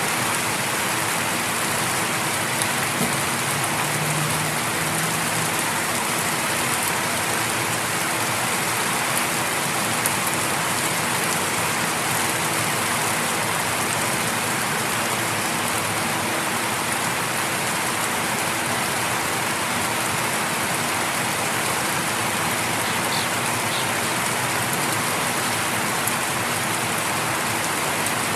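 Light rain falling steadily and evenly on leaves, grass and concrete, with a few louder drips.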